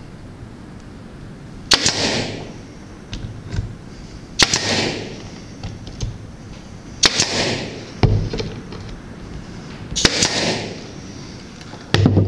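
Pneumatic brad nailer driving brads into wood: four sharp shots a few seconds apart, each followed by a short hiss of exhaust air, with a couple of duller knocks between.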